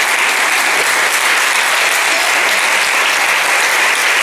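An audience applauding steadily, a dense sustained clapping without breaks.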